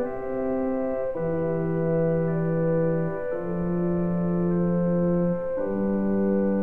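Slow organ music: sustained chords held for about two seconds each before changing to the next.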